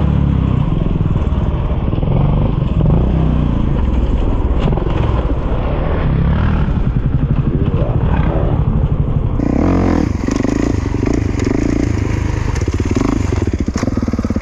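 Motorcycle engine running loud with revs rising and falling as it is ridden. About nine and a half seconds in, the sound changes to a steadier note.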